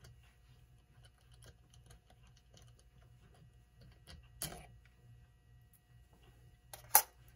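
Faint small metallic clicks and scrapes of a screwdriver working the screws that hold the rotor on a Telechron clock movement, with a louder click about four and a half seconds in and a sharp click near the end.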